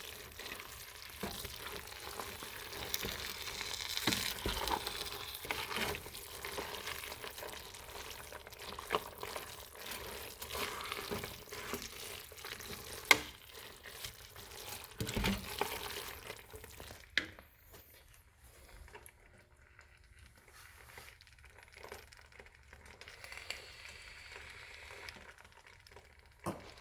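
A utensil stirring sausage and pasta in Alfredo sauce in a pan over a low burner, with a faint sizzle and scattered clicks of the utensil against the pan. The stirring stops about two-thirds of the way through, and it goes much quieter.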